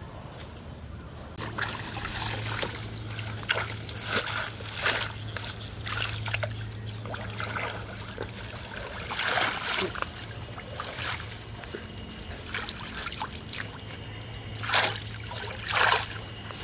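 Water splashing and trickling in a series of short, irregular splashes, with a low steady hum underneath for most of the time.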